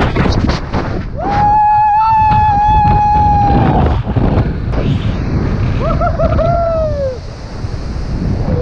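Wind rushing hard over the microphone of a body-worn camera during a jump from a bridge, with a person's long, steady scream about a second in and a second scream that falls in pitch around six seconds.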